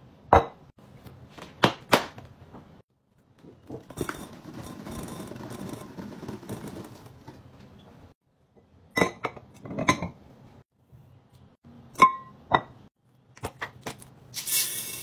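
A glass apothecary-jar lid clinks as it is lifted off and handled. Then laundry detergent pods tumble and rattle into the glass jar for about four seconds. More glass clinks follow, and near the end there is a scratchy rustle as the scent-booster bottle is opened.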